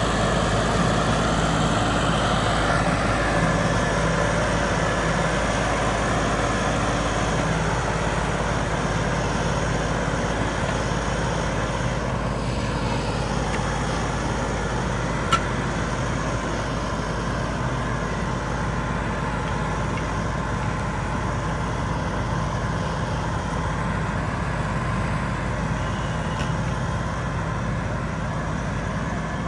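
Diesel engine of a John Deere CRDI tractor running steadily as the tractor drives along, with one short sharp tick about halfway through.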